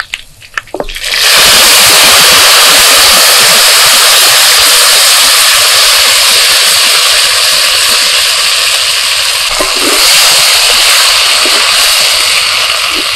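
Fresh drumstick leaves sizzling in hot oil in a clay pot: a loud, steady frying hiss that starts suddenly about a second in as the leaves land in the oil.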